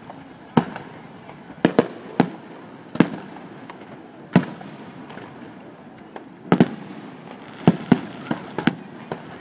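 Fireworks display shells bursting overhead: about a dozen sharp bangs at uneven intervals, several in quick pairs.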